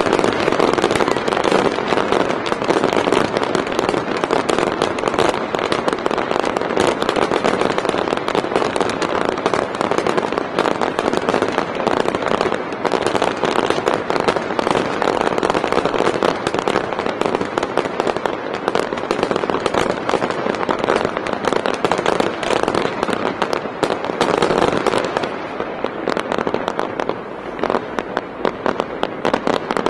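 Fireworks display with many aerial shells bursting and crackling in quick succession, a dense continuous crackle that eases somewhat near the end.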